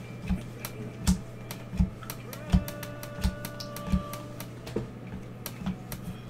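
A stack of trading cards being flipped through one card at a time in gloved hands: a soft tap or click as each card is moved, roughly once every half to one second, over a steady low hum.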